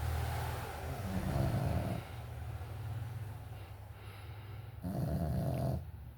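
A small dog snoring in her sleep: a continuous low snore, with two louder, longer snores, one about a second in and one near the end.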